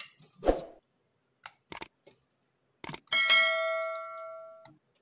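A soft thud as raw chicken pieces are set into a nonstick pan, with a few light clicks. About three seconds in, a click and then a bell ding from a subscribe-button animation, ringing for about a second and a half before it cuts off.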